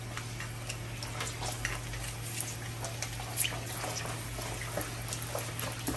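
Large sheet of pork skin deep-frying in hot oil: scattered crackling pops at irregular intervals as the rind puffs, over a low steady hum.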